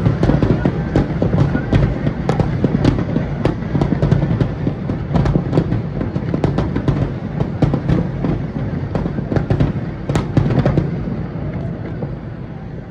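Fireworks display: a dense run of sharp cracks and bangs over a continuous low rumble, thinning out and growing quieter about eleven seconds in.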